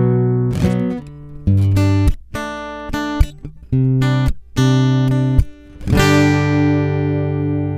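Steel-string acoustic guitar played through a mixing desk's built-in effect: a run of picked chords and notes, then a chord about six seconds in left to ring out. A steady low background hum runs underneath.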